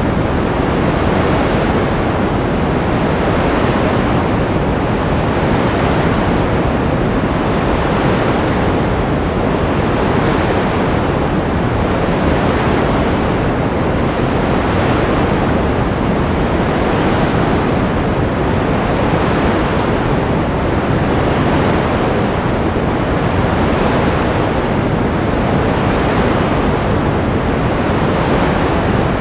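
Ocean surf washing in continuously: a steady rush of breaking water that swells and eases about every two seconds.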